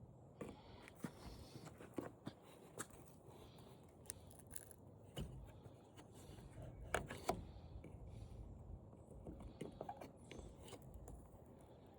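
Faint, scattered clicks and light knocks of a flat-screen TV's parts being handled and worked loose, with two sharper clicks about seven seconds in.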